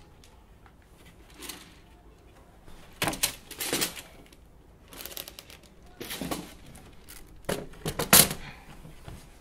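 Wooden boards being handled and set down on one another: scattered knocks, thuds and scrapes of wood on wood in a few short bursts, the loudest near the end.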